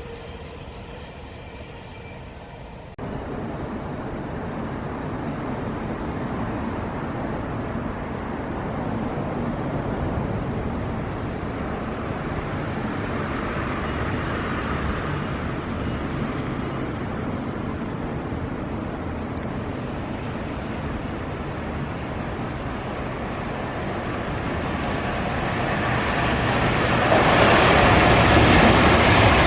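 An electric-locomotive-hauled freight train (JR Freight EF210) approaching. A broad rumble builds slowly from about three seconds in and gets markedly louder near the end as the train draws close.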